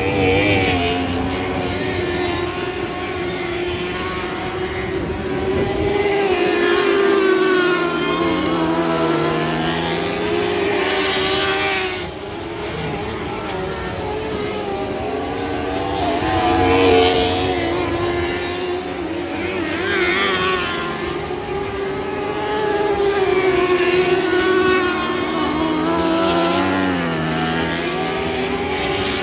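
Winged Lightning sprint cars racing on a dirt oval, their engines revving up and down as they pass. The sound swells and fades in repeated waves every few seconds as the cars go by.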